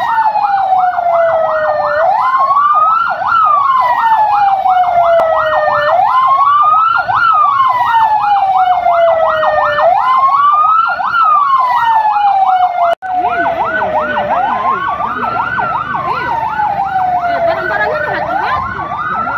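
Siren sounding two patterns at once: a fast yelp rising and falling about four times a second, over a slower wail that climbs for about a second and sinks for about three. It cuts out for an instant about two-thirds of the way through, then carries on with more background noise beneath it.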